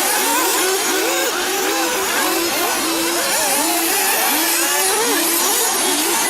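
Several 1/8-scale nitro buggies' small two-stroke glow engines revving and easing off, their pitches rising and falling and overlapping as the cars race.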